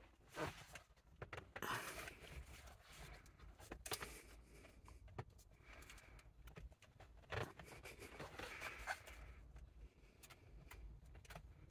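Faint handling sounds: scattered small plastic clicks and brief scrapes as gloved hands squeeze the locking clamps of the airbag and steering-wheel switch connectors to unplug them.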